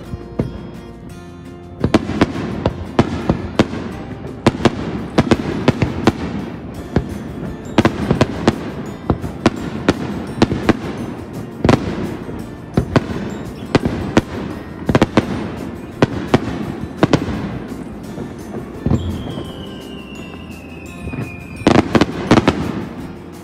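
Aerial fireworks display: a rapid series of sharp shell bursts and crackles. About three quarters of the way through, a whistle falls slowly in pitch, followed by a tight cluster of bangs.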